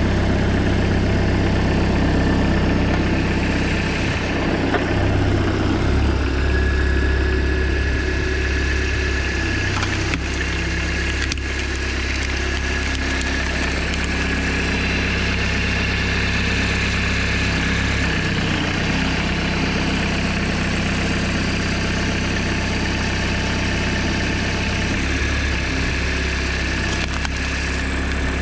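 Homemade tractor's engine running steadily while it powers a hydraulic log splitter. The engine note shifts several times as the splitter's ram is worked, with a faint high whine at times.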